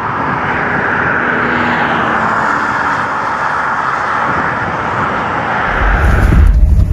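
A steady rushing noise, with a deep rumble coming in about six seconds in as the higher rushing cuts off.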